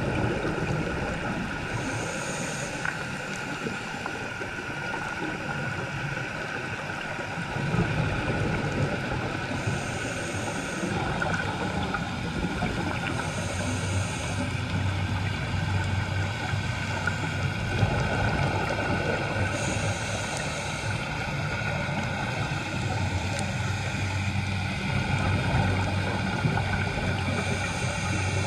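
Underwater sound of a scuba dive: a diver's regulator breathing, with a short hiss every several seconds and long low rumbling stretches of exhaled bubbles, over a steady droning hum.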